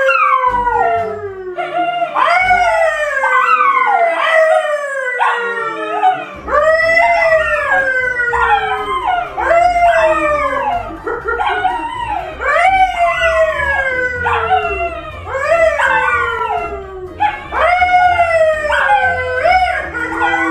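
Two dogs, a yellow Labrador and a brown poodle, howling together with a man who howls along. The howls overlap and come roughly once a second, each one sliding down in pitch.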